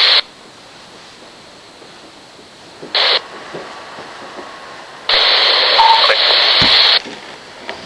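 Radioshack Pro-97 police scanner hissing between transmissions, with a short burst of radio static about three seconds in and a louder two-second burst of static in the second half, as keyed-up transmissions come through without speech.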